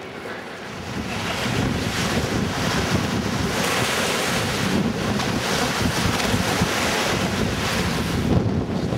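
Sea surf washing in on the shore, with wind buffeting the microphone; the rush swells about a second in and holds steady.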